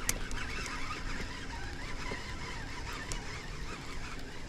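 Wind buffeting the microphone, with faint wavering bird calls, like distant geese, over it and a single click at the very start.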